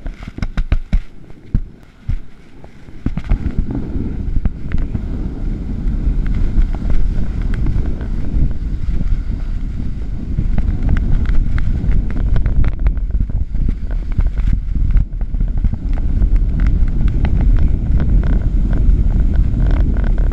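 A few clicks and knocks as the skier sets off, then from about three seconds in a steady low rumble of wind buffeting the action camera's microphone, mixed with skis scraping and sliding over packed snow.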